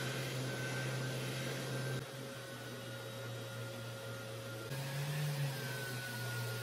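Electric orbital sander running with a Festool dust extractor pulling through its hose: a steady motor hum and whine over a rush of air. The pitch and loudness change abruptly about two seconds in and again near five seconds.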